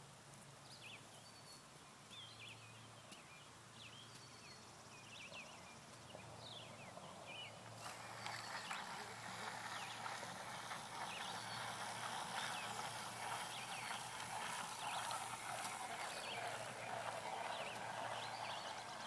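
Hand seed spreader in use, starting about eight seconds in as a steady rustling whir with many small clicks, as clover seed is broadcast over freshly raked soil. Birds chirp throughout.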